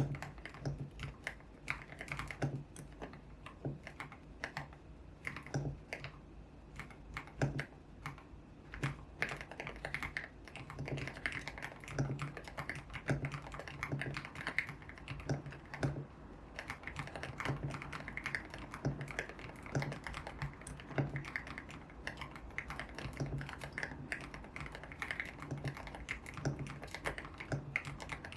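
Continuous typing on a YUNZII X75 Pro mechanical keyboard with lubed Kaith Jellyfish switches, pink Cherry-profile solid keycaps and a tape mod. Key presses come in quick, uneven runs, with a deep thud under many of the keystrokes.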